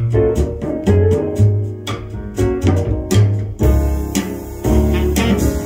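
Jazz record playing on a turntable: a bass line under plucked-string notes and an even beat.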